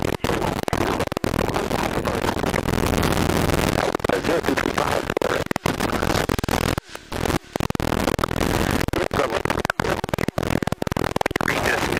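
Cabin noise of a single-engine propeller airplane in flight: the engine and propeller make a steady, dense roar, broken by frequent brief dropouts and crackles.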